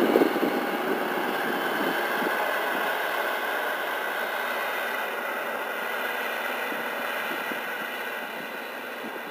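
Case IH Steiger 9380 articulated four-wheel-drive tractor's diesel engine running steadily under load as it pulls a Simba Mono cultivator through the soil, slowly fading as it moves away. A gust of wind hits the microphone at the start.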